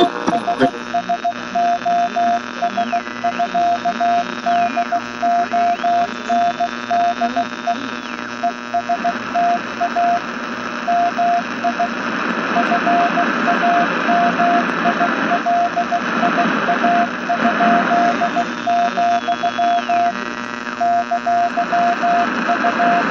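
Morse code beeps, one steady tone keyed in short and long pulses, coming through radio static that grows louder about nine seconds in. A high whistle slides up and down over it during the first eight seconds and again near the end, like a receiver drifting in tune.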